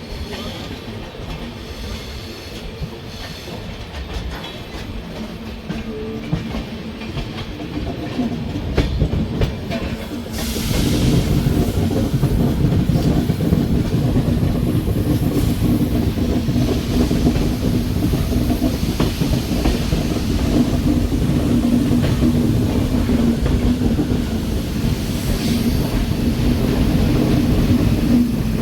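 Passenger train running on the rails, with wheels clattering and a steady rumble. It grows louder about ten seconds in and stays loud with a low hum.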